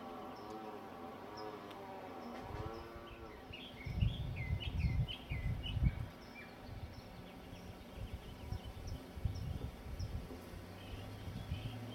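A flying insect buzzes close to the microphone, its pitch rising and falling as it moves, and fades out about two and a half seconds in. Then a small bird chirps in a quick run of short rising and falling notes over low rumbles on the microphone, with a few more chirps near the end.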